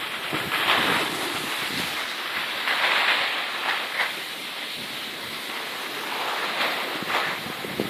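Skis sliding over packed snow: a scraping hiss that swells and fades every second or so as the edges bite and release in the turns.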